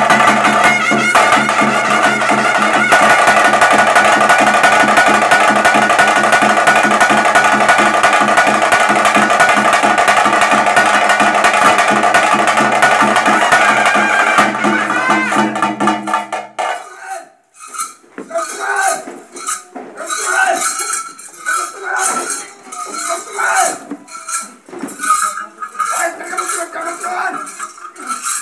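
Traditional bhootha kola band of drums and a long wind instrument playing a steady, dense passage, which stops abruptly a little past the halfway point. After that come people's voices and scattered clinks.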